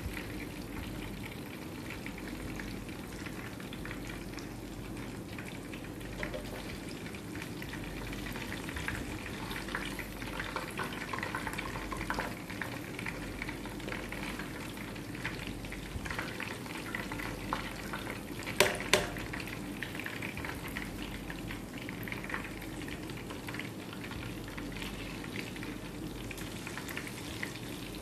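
Marinated, gram-flour-coated fish pieces frying in hot oil: a steady sizzle with fine crackling. Two sharp clicks come about two-thirds of the way in.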